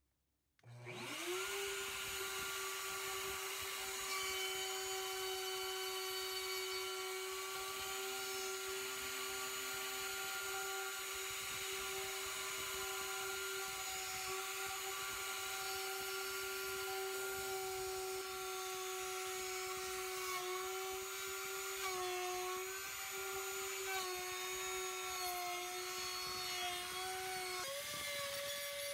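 Electric plunge router starting up and running at speed, its whine rising over the first second and then holding steady as the bit routs a quarter-inch-deep pocket in pine. In the last ten seconds the pitch dips briefly several times, then steps up higher near the end.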